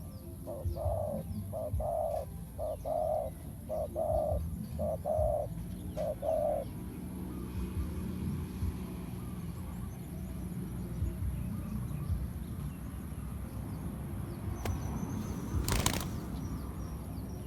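A spotted dove cooing: a run of about eight low coo notes over the first seven seconds, then quiet cooing stops. Near the end there is one sharp knock.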